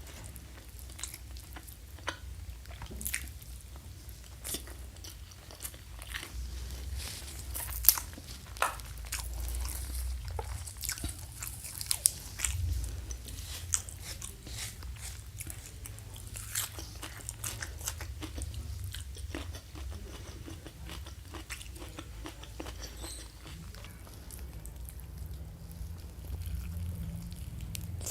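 Close-miked chewing and biting of crunchy food, with crisp crackling crunches and mouth clicks over a low rumble; the sharpest crunches come about 8 and 12 seconds in.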